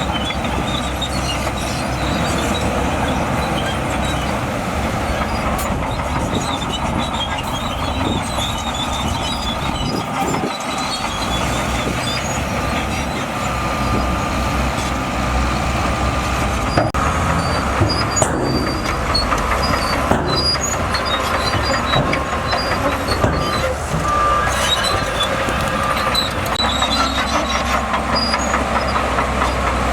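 Shantui DH17C2 crawler bulldozer working: its diesel engine runs steadily under the clatter of the steel tracks, with scattered high squeaks from the track links. A few sharp knocks come in the second half.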